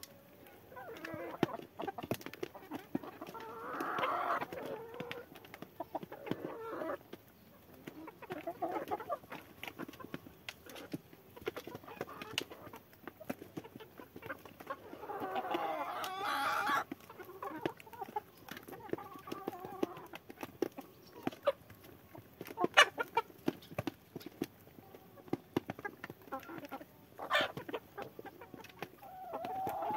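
Hens clucking in short bursts while pecking greens from a metal tray. Their beaks make many sharp taps, a few of them loud.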